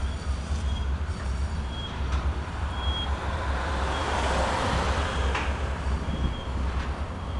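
Container wagons of a freight train rolling past: a steady low rumble of wheels on rail, with brief high squeaks about once a second and a swell of rushing noise near the middle.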